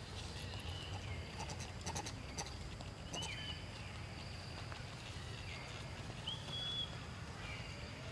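Several short, high chirping animal calls over a low steady rumble of outdoor background noise, with a few faint clicks about two seconds in.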